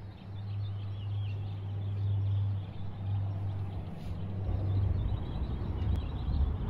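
Outdoor ambience: a steady low rumble with faint bird chirps above it. About four and a half seconds in, the rumble turns rougher and more uneven.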